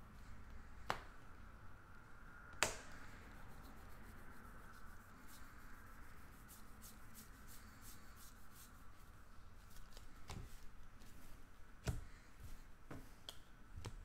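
Trading cards being handled and flipped through a stack: soft slides and scattered light clicks of card stock, with a few sharper snaps, the loudest about two and a half and twelve seconds in. A faint steady hum runs underneath.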